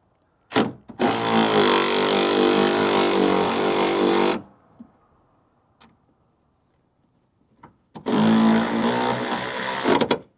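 Cordless 12V electric ratchet wrench running twice under its trigger: first for about three seconds, then for about two seconds near the end. The motor and gearing give a steady, even whine, with a short click just before the first run.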